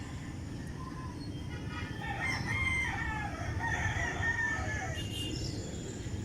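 A rooster crows once, a long drawn-out crow starting about a second and a half in and lasting about three seconds, over a steady low rumble.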